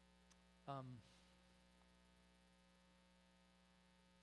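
Near silence with a steady electrical mains hum, broken about three quarters of a second in by a short vocal sound falling in pitch.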